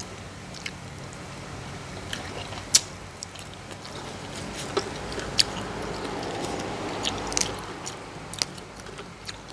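Close-up eating sounds: a person chewing and biting into young-jackfruit salad and crisp raw vegetables, with sharp crunches now and then over a steady low hum.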